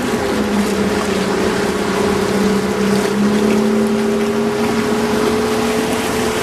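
Mullet boat's engine running steadily under way, its hum shifting pitch slightly a couple of times, with wind and water rushing past the hull.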